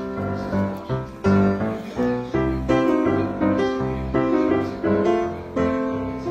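Background music led by piano, with notes and chords struck in quick succession, each ringing and fading.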